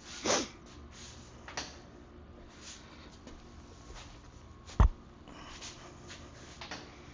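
Quiet handling sounds of work on a dirt bike's rear wheel assembly: a brief scrape just after the start, then a single sharp knock a little under five seconds in.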